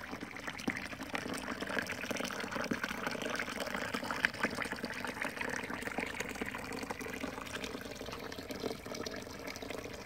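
Water running steadily down a small homemade cement garden waterfall, splashing into its foamy basins, kept flowing by an aquarium pump.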